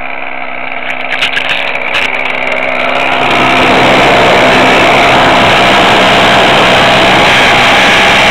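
Calmato RC trainer plane's motor running, picked up close by a camera mounted on the plane. It grows much louder about three seconds in and holds there, with a few clicks of handling a second or two in.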